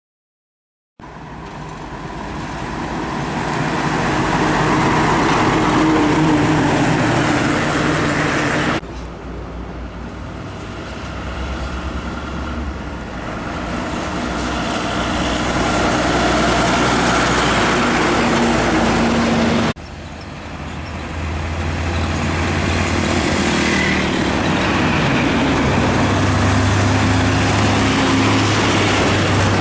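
Heavy diesel trucks driving past on a highway: engines running with a low drone and tyre noise on the road. There are three separate passes that cut off abruptly, each growing louder as the truck comes closer.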